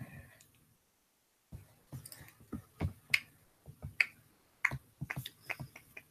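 Irregular, fairly faint clicks of computer keys being pressed, a few a second, starting after a short pause about a second and a half in.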